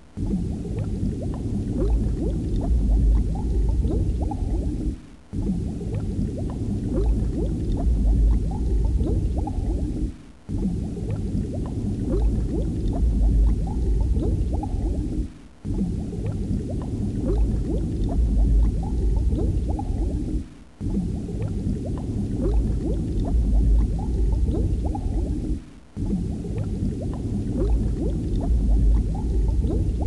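Bubbling, gurgling water, as from underwater bubbles. It is a short loop that repeats about every five seconds, with a brief dip at each repeat.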